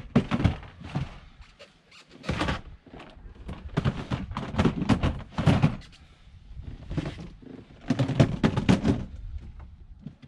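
Plastic storage totes thunking and scraping against each other and the wooden frame as they are shoved into place under a raised wooden bed platform: a string of irregular knocks with short pauses between them.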